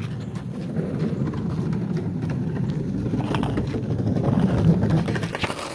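Skateboard wheels rolling over rough, cracked asphalt: a steady gritty rumble with occasional faint clicks, a little louder about four to five seconds in.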